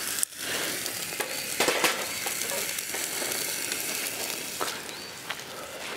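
Dry-aged entrecôte steak sizzling on a hot stainless-steel grill grate, a steady hiss with a few short crackles.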